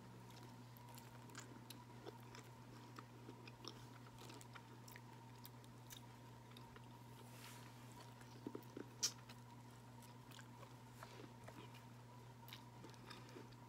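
Faint chewing and small mouth clicks of someone eating crab legs close to the microphone, over a steady faint electrical hum, with one sharper click about nine seconds in.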